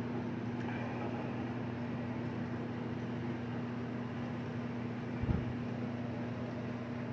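Steady low hum under an even hiss of background noise, with one soft low thump about five seconds in.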